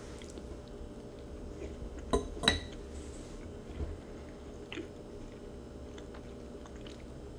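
A metal fork clinks sharply twice on a ceramic bowl a little after two seconds in, with a few fainter clicks later, while someone chews a bite of brownie.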